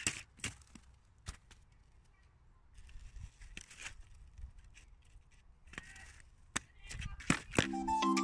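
Fischer cross-country ski boots being clipped into their ski bindings: a scatter of sharp clicks and snaps, with soft scuffing of the boots and skis on snow in between. Music comes in near the end.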